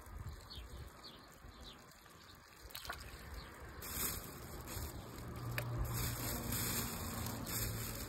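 Handling noise of leafy herbs being spread by hand in a metal basin, then a plastic bag rustling from about halfway as a hand reaches into it for more herbs.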